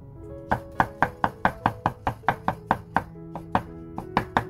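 Kitchen knife rapidly chopping king oyster mushroom on a wooden cutting board: a fast, even run of knocks, about five a second, starting about half a second in, over background music.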